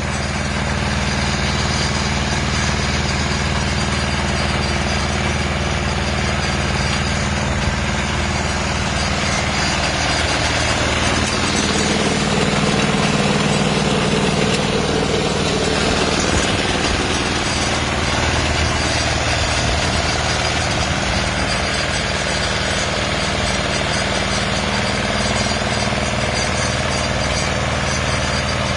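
Engine of a barley-sowing machine running steadily; its note shifts between about 11 and 16 seconds in, then settles back.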